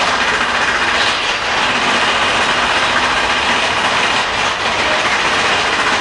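Amusement-ride train running along its track: a steady, loud rushing noise.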